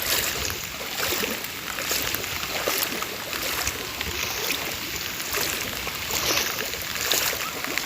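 Floodwater splashing and sloshing, with a run of many small irregular splashes over a steady rush of water.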